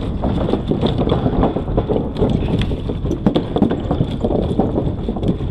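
Bicycle rolling over a bumpy surface: the bike rattles with frequent irregular knocks, over a steady rumble of wind on the action camera's microphone.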